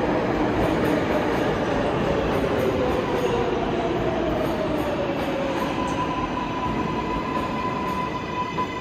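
New York City subway train running through the station and slowing, a loud steady rumble with a whine that slowly falls in pitch, giving way to a steady high tone about six seconds in.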